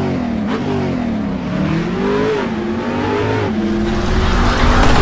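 Car engine revving, its pitch climbing and falling several times as it runs up and eases off, and getting louder near the end.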